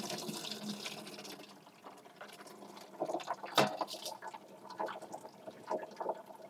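A little water draining out of a sink through its plug outlet and flexible corrugated waste hose: a rush of water that fades over the first couple of seconds, then irregular gurgling as the last of it goes down, the loudest gurgle about three and a half seconds in. The gurgling shows the sink has drained.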